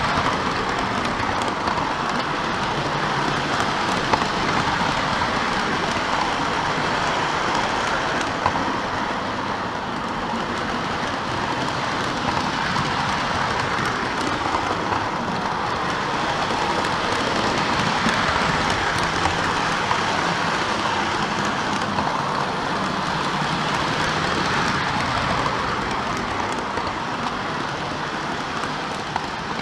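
Lionel model train of an NW-2 switcher, freight cars and caboose rolling steadily along its track, heard from on board: a continuous rattling rumble of wheels on rails, with a few sharp clicks.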